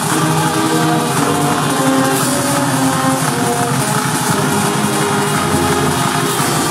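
Brass band playing a slow hymn in long held chords, the notes changing every second or so.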